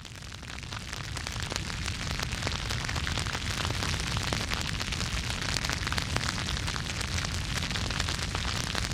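Steady crackling, sizzling noise, dense with small pops over a low rumble, swelling up over the first second or two.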